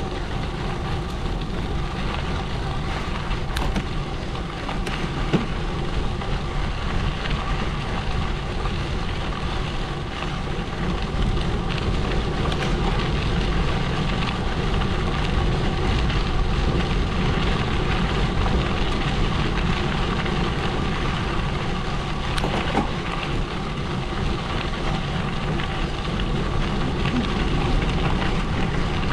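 Gravel bike tyres rolling over a gravel road: a steady crunching, crackling noise, heavy in the low end, with a few sharp clicks of stones.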